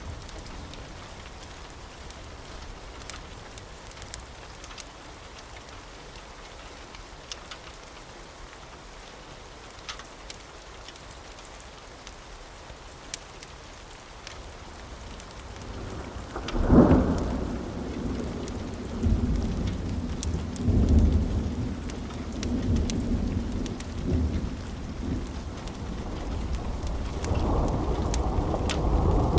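Thunderstorm: steady rain with scattered drop ticks. About halfway through, a sudden clap of thunder sets off a rolling low rumble that carries on for several seconds. The rumble swells again near the end.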